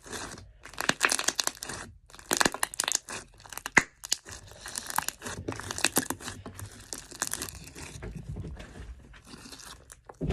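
Slime being squeezed and stretched by hand, making irregular bursts of crackling and popping that quieten over the last couple of seconds.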